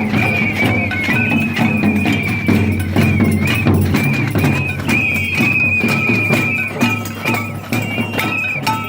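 Protesters making noise together: percussion struck in quick, irregular hits, with a high shrill tone wavering on and off above it.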